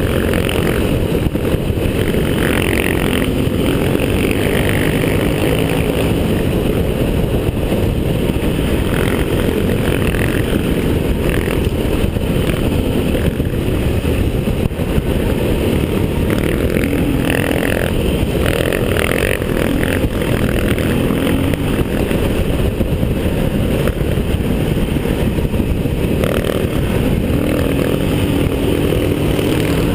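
Large single-cylinder enduro motorcycle engine running hard at speed, heard from a camera mounted on the bike. A dense, steady low rumble of wind and riding noise goes with it throughout.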